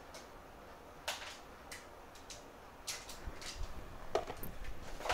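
A few light, sharp clicks and taps, spaced about half a second to a second apart, from small hand tools being handled at an electronics repair bench.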